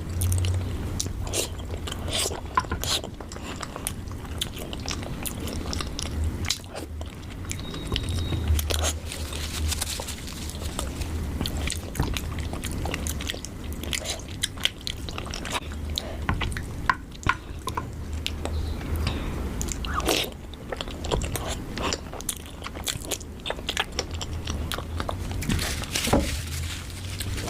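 A person eating close to the microphone: chewing and biting with frequent short crunches and wet mouth clicks, over a steady low hum.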